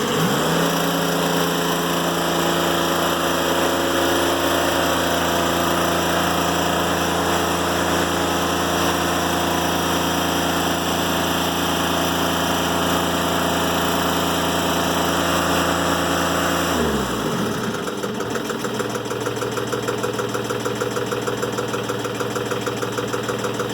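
Timberking 1400 band sawmill's engine running steadily under load while the blade saws through a black locust log. About 17 seconds in, its pitch falls away as it is throttled back to idle at the end of the cut, and it keeps idling.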